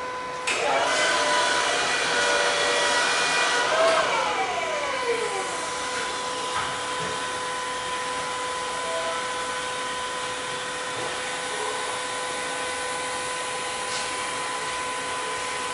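Forklift hydraulic pump motor whining as the mast is worked, then winding down with a falling pitch about four seconds in. A steady machine hum carries on underneath.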